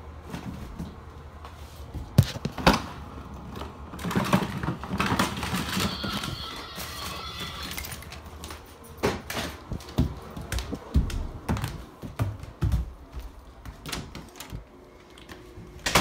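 Irregular clicks and knocks of objects being handled and moved about, with a denser run of rapid rattling clicks about four to eight seconds in.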